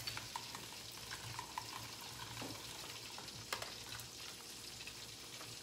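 Faint crackling and scattered small clicks of a lemon quarter being pressed by hand on a Saladmaster food processor's juicing cone, with a couple of sharper ticks about three and a half seconds in, over a steady low hum.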